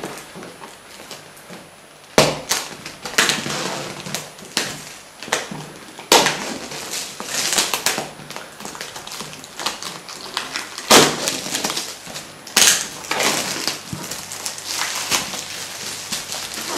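Clear plastic shrink-wrap being torn and pulled off a cardboard box, crinkling and crackling in irregular bursts with a few sharper cracks.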